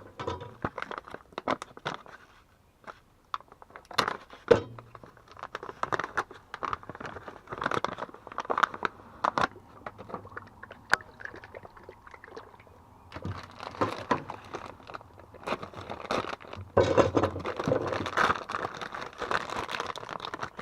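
Plastic packaging being handled and opened: irregular crinkling and crackling with sharp clicks and small knocks, getting denser and louder in the last few seconds.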